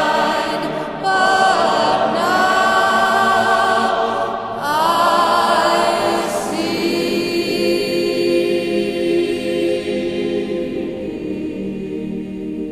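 Background music: a choir singing a cappella, its notes starting with upward scoops, then settling into one long held chord that slowly fades.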